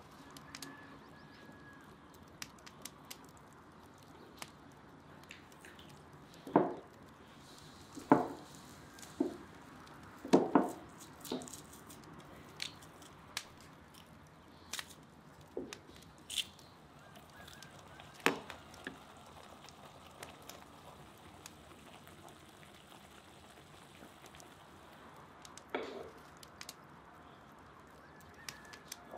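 Metal garlic press crushing garlic cloves over a clay bowl: a series of short clicks and a handful of sharper knocks that ring briefly, each time the press closes or strikes the bowl.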